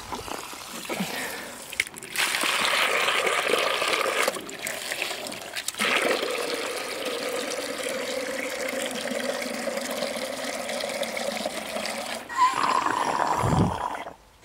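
Water from a garden hose pouring into a white plastic bucket. It starts about two seconds in, runs steadily with two short dips, and stops just before the end.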